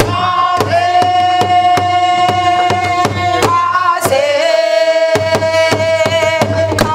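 Singing of a Korean Namdo folk song in long held, gently bending notes, over steady strokes of a stick on a buk barrel drum.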